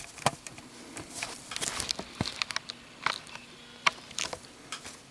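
Scattered small clicks and taps from handling a Zippo lighter, a little louder right at the start and again about four seconds in.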